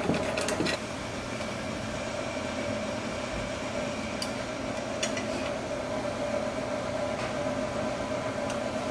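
A steady background hum on one pitch, with a few faint clicks as the node's metal mount clamp is tightened by hand.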